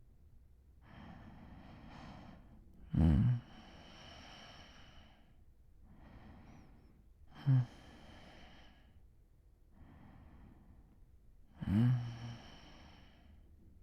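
A man's slow, sleepy breathing, with three short voiced sighs that drop in pitch, about four seconds apart.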